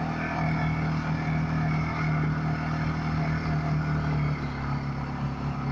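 TGB quad (ATV) engine running at a steady pace while riding along a dirt track, under a hiss of wind and tyre noise.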